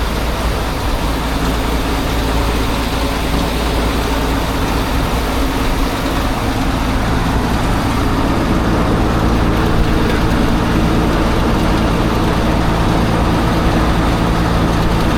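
Combine harvester's diesel engine running steadily.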